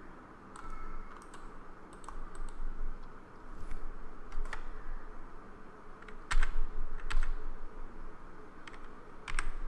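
Keystrokes on a computer keyboard: scattered single clicks with pauses between, the two loudest about six and seven seconds in.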